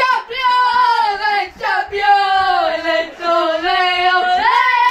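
Young voices singing a football song loudly together, in long held notes that drop about halfway through and rise again near the end.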